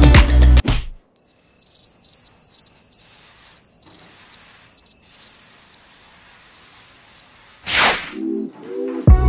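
Cricket chirping: a steady, high, pulsing trill that starts after the background music cuts off about a second in. A short whoosh near the end, just before the music comes back.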